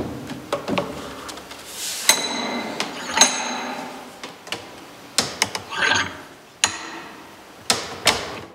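Wooden pressing boards, metal trays and an iron screw press knocking and clinking while pieces of air-dried beef (Bündnerfleisch) are loaded and pressed. A series of sharp knocks, with two ringing metallic clinks about two and three seconds in.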